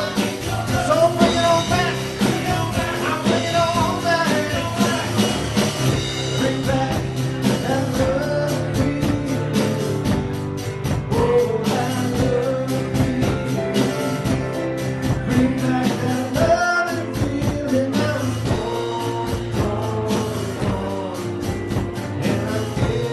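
Rock band playing a song, a lead vocal singing over guitar, bass and a steady drum beat.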